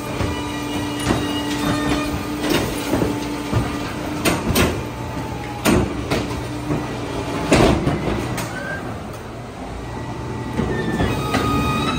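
Heil 5000 rear-loader garbage truck's hydraulics at work: the cart tipper dumps a wheeled trash cart into the hopper and sets it down, with a steady hum from the engine-driven hydraulic pump for the first few seconds and several loud clanks and bangs of the cart and lifter.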